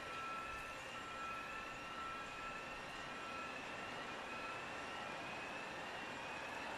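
Electronic alarms sounding at a distance over a steady background of city noise: a rising whooping sweep repeating about once a second, and a steady high tone that breaks off and resumes.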